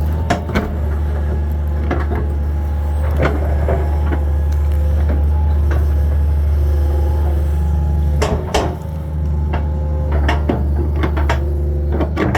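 Diesel engine of a 22.5-ton Hitachi 225 excavator running steadily, with scattered sharp knocks and cracks as it handles wood and debris, the loudest cluster about two-thirds of the way in.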